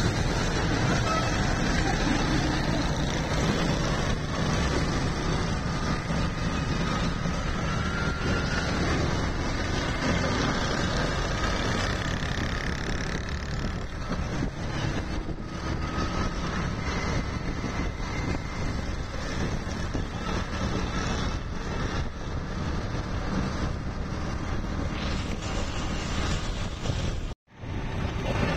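Steady on-road traffic noise from a moving vehicle: engine and wind rush with surrounding motorcycles and auto-rickshaws, on a wet street. The sound cuts out for an instant near the end.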